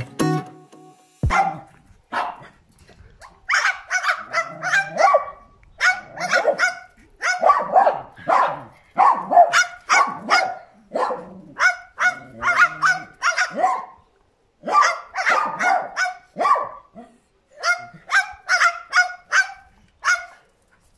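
A small dog and a white cockatoo barking, the cockatoo mimicking the dog's bark. The barks come as rapid clusters of short yaps, with brief pauses between clusters.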